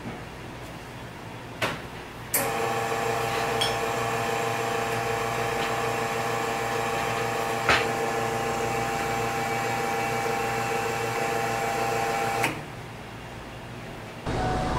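Espresso machine's pump starting with a click and running with a steady hum for about ten seconds while a shot is pulled, then cutting off. A single short knock comes partway through.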